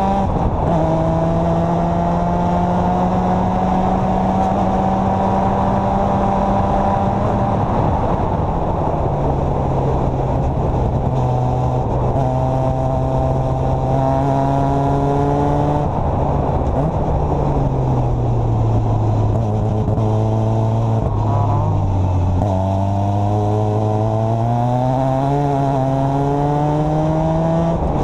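Formula Mazda's 13B rotary engine heard from the open cockpit at racing speed, over a steady rush of noise. The engine note drops sharply just after the start and then climbs, steps down around a third of the way in, sinks further as the car slows for a corner past the middle, then rises again hard and drops sharply near the end.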